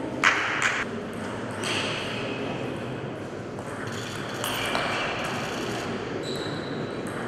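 Table tennis rally: the ball clicking off the players' rubber-faced paddles and bouncing on the table at an irregular pace, with a steady hall background.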